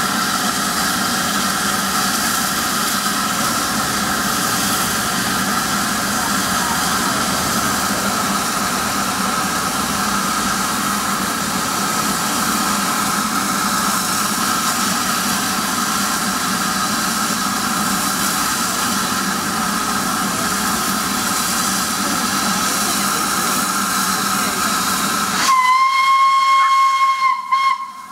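LNER K1 steam locomotive 62005 standing ready to depart, its steam hissing steadily. Near the end its whistle gives one long steady blast.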